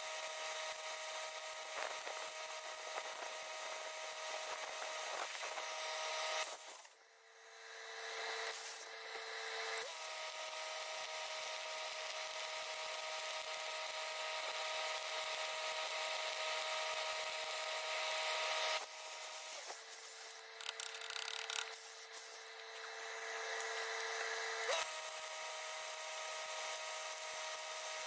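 Electric welding arc crackling and hissing steadily, with a steady machine whine under it. The arc breaks off about six seconds in and restarts about three seconds later, eases again for a few seconds after about nineteen seconds, and the whine drops in pitch during both lulls.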